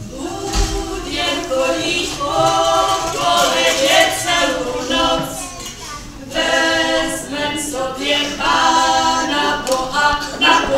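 A small group of women's voices singing a Christmas carol unaccompanied, in long held phrases with a short break about six seconds in.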